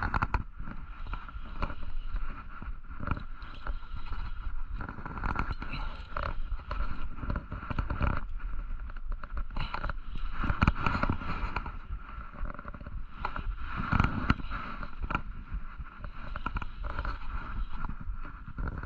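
Spinning fishing reel being cranked, under a rough, rumbling wind and handling noise on the body-worn camera's microphone, with a steady high hum and frequent small clicks and knocks.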